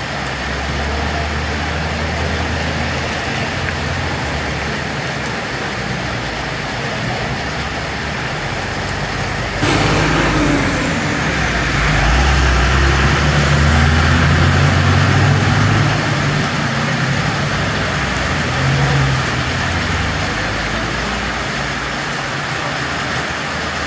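Steady rain falling on a paved street while motor vehicles drive through it, tyres hissing on the wet road. A yellow route bus passes around the middle, its engine rumble the loudest sound, and another vehicle passes later.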